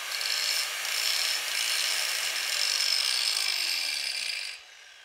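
A power tool cutting through the metal housing of a power steering box: a steady, harsh cutting noise with a faint tone sliding down in pitch in its second half, stopping abruptly about four and a half seconds in.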